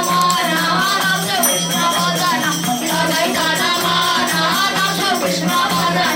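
Boys singing a Hindu devotional bhajan together, with rattling, jingling hand percussion keeping an even beat.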